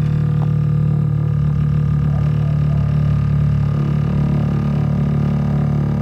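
Water pipes droning and shaking from water hammer: a steady, loud low hum with a rapid pulsing flutter. It is the sign of water forcing its way through a valve that is slightly cracked or clogged.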